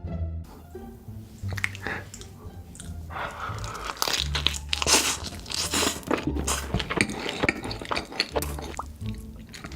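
Close-miked mukbang eating: loud crunching bites and chewing of crisp food, densest from about three seconds in, over background music with a steady bass line.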